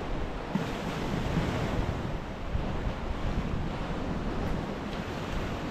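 Sea surf washing onto a shingle or sand beach, a steady rushing noise, with wind buffeting the microphone.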